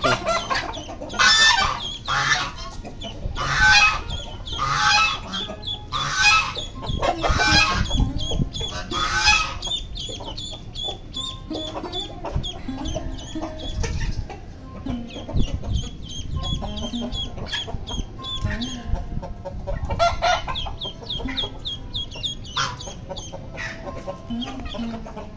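White domestic ducks giving loud, harsh calls about once a second for the first ten seconds; the calls frighten the newly introduced ducklings. After that, softer hen clucking and high, short peeps go on.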